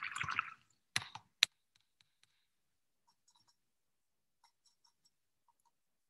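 Painting supplies being handled: two sharp clicks about a second in, then faint, scattered light ticks and taps.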